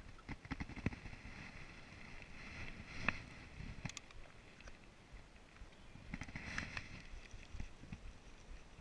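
Small clicks and taps of a plastic jar of bait dye being handled and its lid put back on, over a low wash of water lapping at a boat hull.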